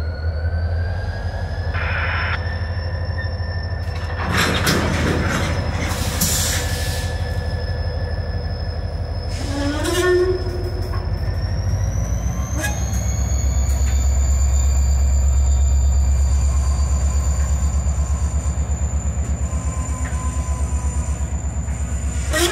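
Diesel-electric locomotive working, its engine drone steady and then louder about halfway through as a high turbocharger whine climbs in pitch: the engine is loading up under throttle. Short bursts of hiss and a brief squeal from the train come in the first half.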